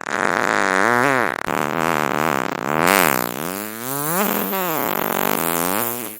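A long, drawn-out fart sound, a pitched rasp whose pitch wavers up and down repeatedly for about six seconds. It breaks briefly about a second and a half in and cuts off abruptly at the end.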